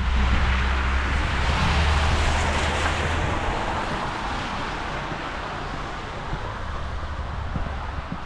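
A car passing on a wet, slushy street: tyre hiss swells over the first couple of seconds with a low engine hum under it, then slowly fades.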